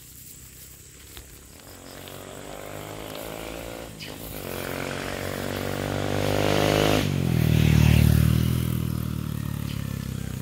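A small motorcycle engine growing louder as it approaches and passes close by. Its note drops in pitch as it passes, about seven seconds in, then fades as it rides away.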